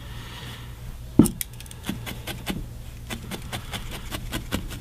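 Felting needle poking repeatedly into wool: a run of light, quick taps at about three to four a second, starting about a second in with one louder knock.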